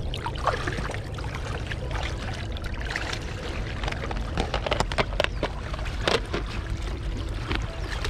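Water sloshing and splashing in a plastic tub crowded with koi and goldfish as hands work among the fish and water is poured off, with many short splashes over the steady rush of shallow flowing water.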